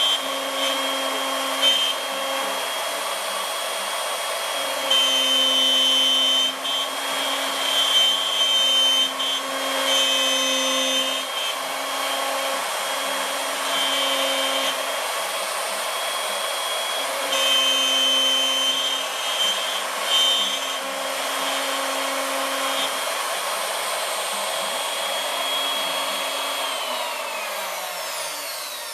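ShopBot CNC router running: a steady whine from the router spindle, with tones that come and go every second or two as the machine moves. Near the end the whine falls in pitch as it winds down.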